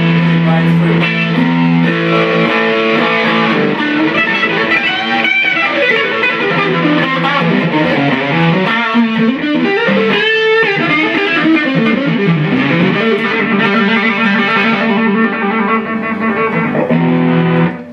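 Gibson Custom Shop Historic 1959 Les Paul Reissue electric guitar played through a Fender combo amp: a run of lead lines with held notes and string bends. It stops abruptly right at the end.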